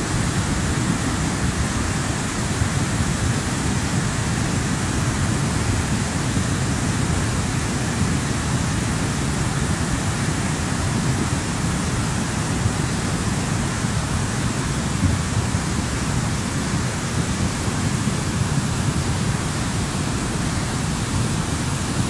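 Mountain torrent in flood: a steady, loud rush of fast, muddy water churning over boulders, with a deep low rumble beneath the hiss.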